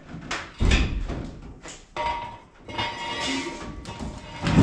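Heavy thuds and metal scraping as a car is lifted by hand off its jack stands. There is a loud thud about half a second in, a scraping, squeaking stretch in the middle and another thud near the end.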